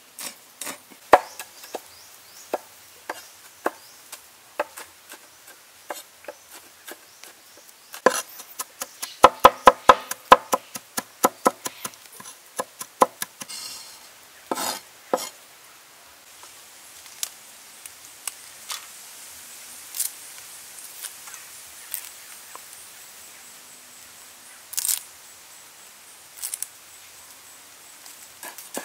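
A cleaver chopping and mincing red chilies and garlic on a wooden chopping board: a run of sharp knocks, fastest about nine to ten seconds in, thinning to occasional single knocks in the second half.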